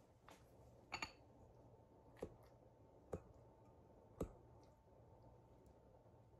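A metal fork clinking against a glass salad bowl while salad is picked up: a quick double clink with a short ring about a second in, then three single taps about a second apart, over faint room hum.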